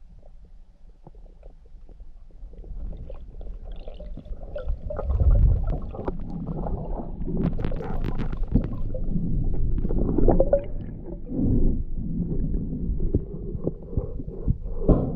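Muffled underwater rumbling and gurgling, with scattered knocks and clicks, as water moves around the camera while the spearfisher swims; quiet at first, it grows louder a few seconds in.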